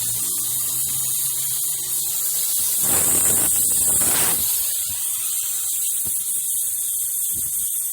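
Gas-welding torch flame hissing steadily, with a louder rush of hiss about three seconds in that lasts over a second.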